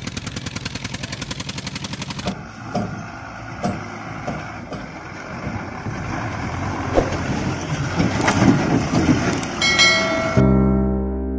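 Engine sound, a rapid even putter of about nine beats a second for the first two seconds, then a denser, heavier engine sound with a few knocks that grows louder. Near the end a short bright chime sounds and music comes in.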